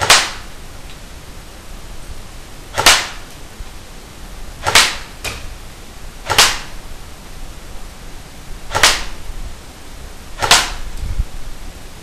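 Single shots from a CYMA CM052 airsoft RPK striking a paper target: six sharp snaps about two seconds apart.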